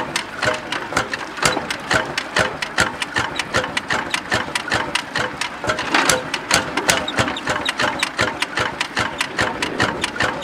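Early iron-wheeled Lanz Bulldog's single-cylinder hot-bulb two-stroke engine running with its even, rapid knocking beat.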